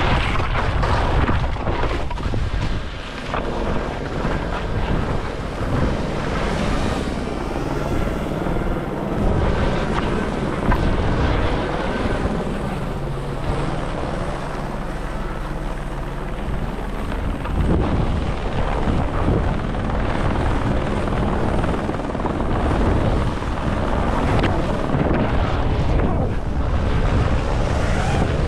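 Small FPV drone's electric motors and propellers running and buzzing as it flies, recorded from the camera on the drone itself.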